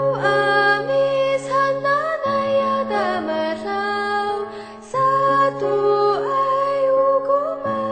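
Background music: a slow sung melody over held chords that change about every two and a half seconds.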